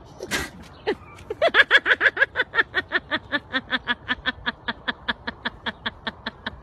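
A short sharp breath, then from about a second in a long unbroken run of fast 'ha-ha-ha' laughter, about seven pulses a second, higher-pitched at first and settling lower.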